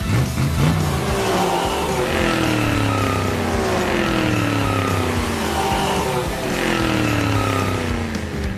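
Cartoon vehicle engines racing by: several passes one after another, each a falling engine whine, over a steady low engine hum.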